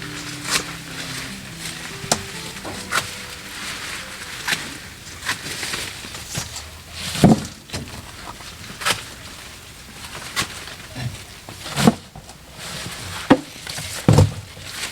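Irregular sharp knocks and snaps, about one a second, with a few heavier thuds, typical of hand work with wood or a tool.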